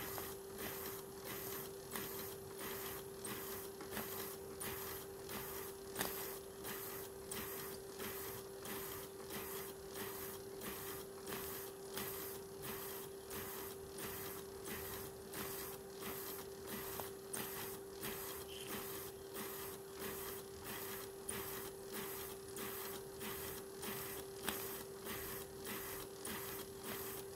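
Retrol model beam steam engine running steadily: the rhythmic chuff and clatter of its cylinder, valve gear and beam linkage in a quick, even beat, with a steady hum underneath.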